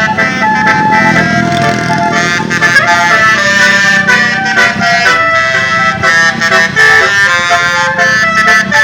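Bus 'telolet' (basuri) multi-tone musical horn playing a melody of quickly changing notes, with the bus engine rumbling underneath.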